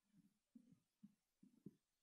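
Near silence broken by faint, soft low thumps, two or three a second at uneven spacing.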